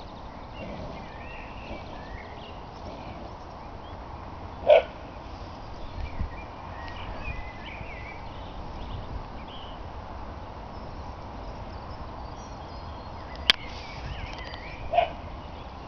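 Small birds singing over a steady outdoor background. Two short, loud calls stand out, one about five seconds in and one near the end, with a sharp click shortly before the second.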